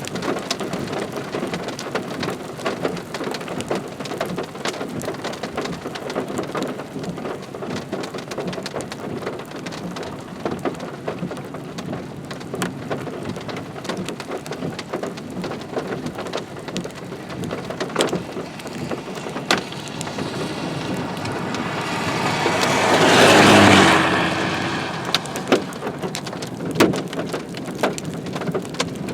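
Steady rain falling, with scattered drops ticking sharply close by. Near the end a louder rushing noise swells over a couple of seconds and quickly dies away.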